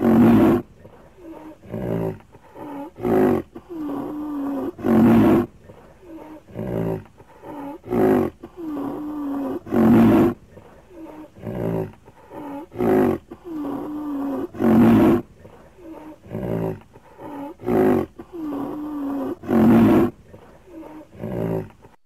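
Rhinoceros calling: a loud, long low call followed by several shorter calls. The same sequence repeats about every five seconds.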